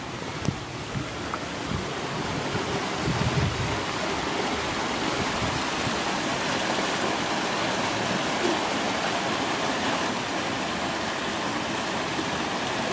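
A small stream in spate after heavy rain, rushing and churning steadily. A few low thumps sound in the first four seconds.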